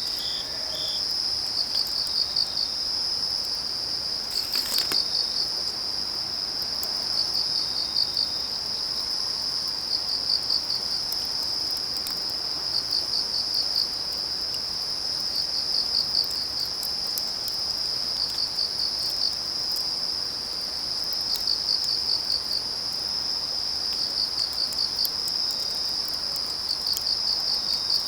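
Autumn crickets singing: a steady high-pitched trill, with groups of rapid chirps repeating every couple of seconds. Under it, burning firewood crackles now and then, with one louder pop about five seconds in.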